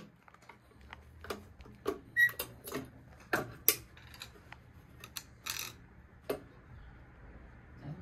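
Irregular clicks and metallic taps as the hinged plastic protective cover on a fire alarm pull station is flipped open and a screwdriver is worked against the station's metal faceplate, about a dozen sharp knocks in all.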